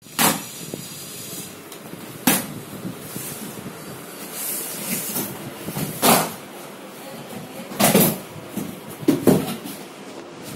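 Cardboard carton being opened and handled by hand: rustling with about five short, sharp scrapes and rips as the flaps are pulled open.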